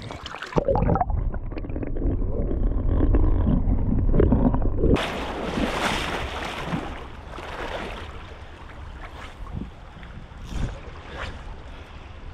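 River water sloshing close to the microphone: a low, muffled rumble for the first few seconds, then a sudden bright splashing rush about five seconds in that fades away.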